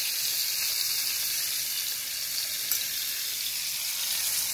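Whole koi fish deep-frying in a wok of hot oil: a steady sizzle, with one light click about two and a half seconds in.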